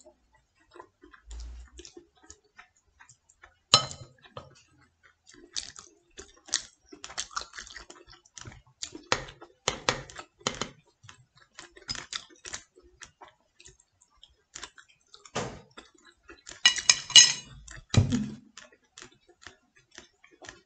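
Chopsticks and a metal spoon clicking and scraping against a ceramic serving plate while picking meat off a whole fish, in scattered light taps. A ringing clink comes about four seconds in, and a louder run of clinks with a dull knock comes around seventeen seconds in.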